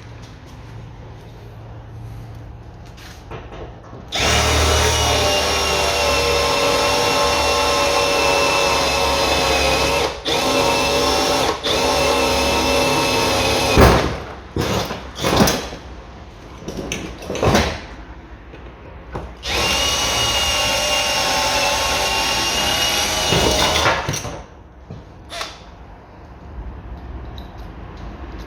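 Cordless drill drilling out the rivets that hold a car window regulator to its mounting plate. It runs twice with a steady whine: about ten seconds with a couple of brief stops, then about four seconds, with clicks and knocks in between.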